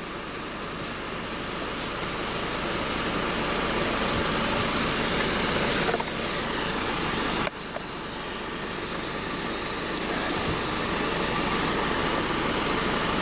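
Car engine running steadily, growing louder over the first few seconds. It breaks off abruptly about halfway through and carries straight on at a similar level.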